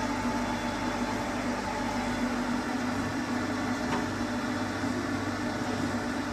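Jones & Shipman Format 5-150 CNC surface grinder running, a steady mechanical hum and whir with a constant low tone.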